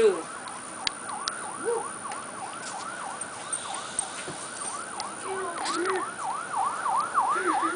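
Emergency-vehicle siren in a fast yelp, its pitch sweeping up and down about three to four times a second, faint at first and growing louder.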